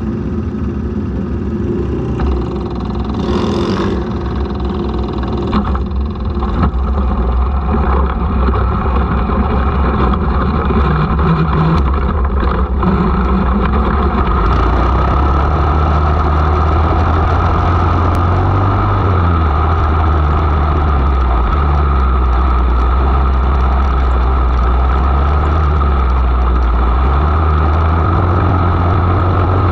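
500cc mini sprint car engine heard from on board, pulling away at low speed and then running steadily around the track, with the throttle rising and falling every few seconds.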